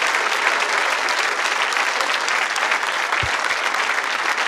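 Studio audience applauding steadily, with a brief low thump about three seconds in.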